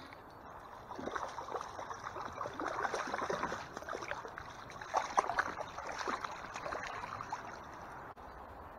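A hooked trout splashing repeatedly at the surface of the stream as it is played to the net. The splashing starts about a second in and is loudest around the middle.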